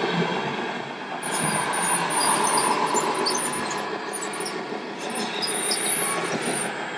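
Small electric motors and gearboxes of radio-controlled model trucks and construction machines running with a squealing whine, over steady hall noise.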